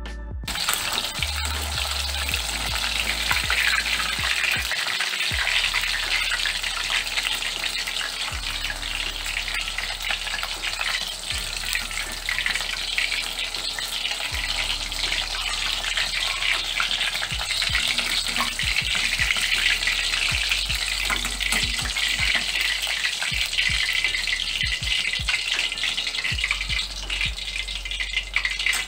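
Battered chicken pieces deep-frying in hot oil in a metal wok (kadai) over medium heat: a steady, dense sizzle and crackle, with occasional clicks of a slotted spoon turning and lifting the pieces.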